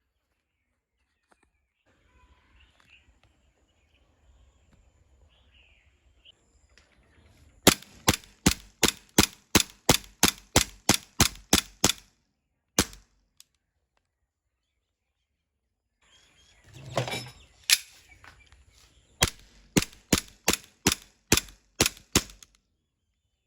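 Airsoft BB gun firing in two quick volleys of sharp shots, about three a second, with a short pause between. Between the volleys comes a brief, noisier sound lasting about a second.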